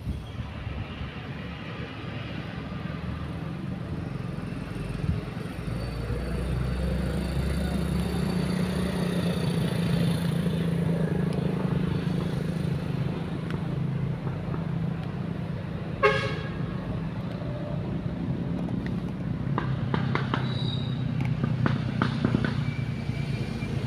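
Low, steady engine rumble of road traffic, building toward the middle and easing off again. About two-thirds of the way through there is one brief, shrill toot, followed later by a few light clicks.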